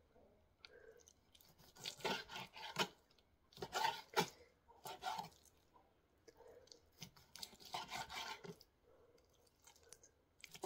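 Kitchen knife slicing raw chicken breast into strips on a plastic cutting board: several short bursts of cutting strokes, the blade scraping through the meat.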